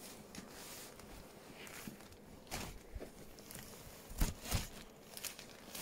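Soft rustling and scuffing of a pop-up fabric play tunnel as a baby crawls into it, with two sharper knocks about four seconds in.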